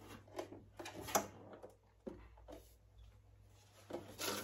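Handling noise from a Ninja Foodi multicooker being unpacked: scattered light clicks and knocks of hands on its plastic lid and the cardboard packing insert in the pot, the loudest about a second in, with a short scrape near the end.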